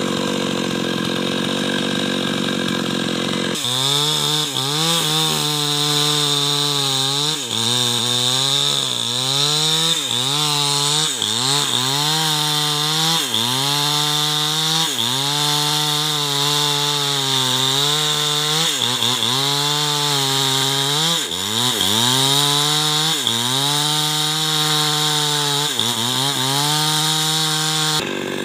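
Small chainsaw cutting into the trunk of a large albizia tree. Its engine note sags each time the chain bites into the wood and picks back up as the load eases, repeating every second or two.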